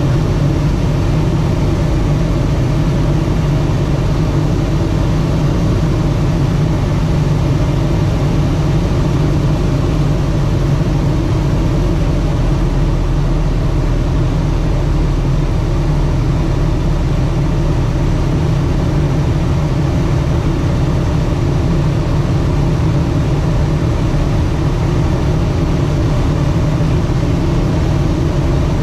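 CubCrafters Carbon Cub FX-3's piston engine and propeller running steadily, heard from inside the cockpit as a loud, deep, even drone.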